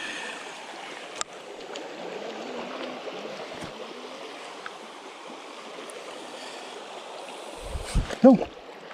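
Creek water rushing steadily over a shallow riffle. Near the end, a couple of dull thumps.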